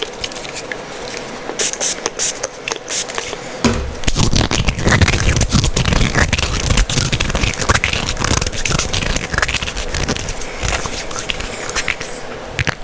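Dry scraping and scratching of hands rubbed against a rough material: sharp scratchy strokes at first, then from about four seconds in a denser, heavier rubbing that keeps going until just before the end.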